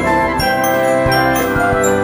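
Instrumental background music: many held, chiming notes over a low, regular beat.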